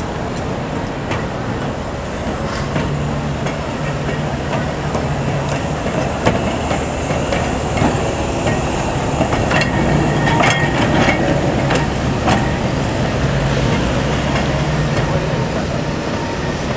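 Heritage electric tram running on street track. A low hum comes and goes, and clicks and knocks from the wheels and running gear cluster around the middle, where it is loudest.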